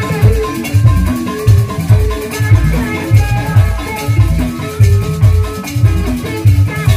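Sundanese jaipongan music in the bajidoran style, played live. Deep drum strokes, from the kendang drums, beat about twice a second under a gamelan melody.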